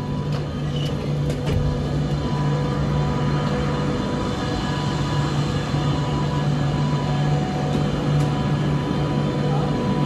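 Cabin noise of a PKP Express InterCity Premium ED250 Pendolino electric train under way: a steady rumble with a constant low electric hum and a couple of faint steady higher tones.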